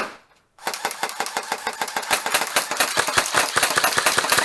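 A sharp crack at the start, then after about half a second a continuous rapid clatter of airsoft gunfire, fast mechanical clicks running without a break.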